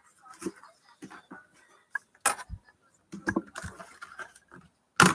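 Scattered small clicks and taps of handling on a desk, with a sharper knock about two seconds in and a busier run of taps shortly after.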